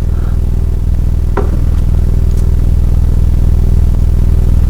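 Steady low electric hum of a sewing machine's motor running, with a single sharp knock about a second and a half in.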